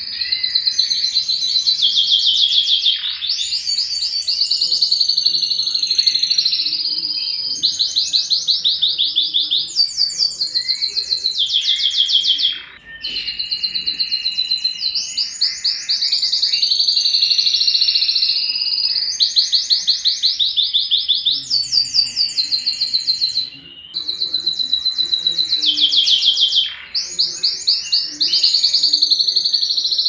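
Domestic canary singing a long, loud song of fast trills and rapid rolling note series, high-pitched, broken by a few short pauses.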